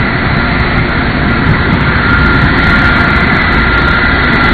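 Jet engines of a Boeing 747 Shuttle Carrier Aircraft running as it taxis: a loud, steady rumble with a high whine on top that grows stronger about two seconds in.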